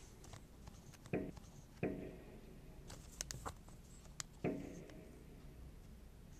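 Fireworks going off: three sharp bangs, each fading in a short rumble, about a second in, a moment later and past the middle, with a few faint crackles between them.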